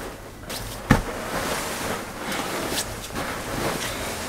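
Rustling of bedding and clothing as a person shifts and lies down on a mattress in a cramped capsule bed, with one sharp knock about a second in.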